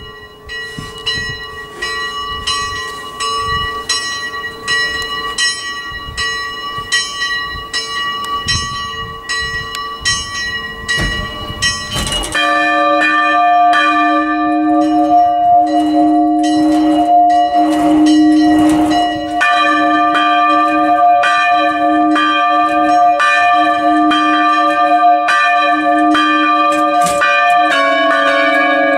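Bronze church bells swinging and ringing in the belfry, struck in a steady, repeating rhythm of strokes. About twelve seconds in, the sound changes abruptly to a larger, lower-pitched bell ringing louder.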